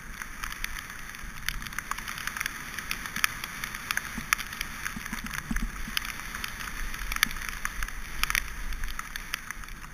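Mountain bike tyres rolling fast over a wet dirt track: a steady hiss of tyres and water spray, with many small sharp clicks of grit and drops hitting the bike and frame throughout.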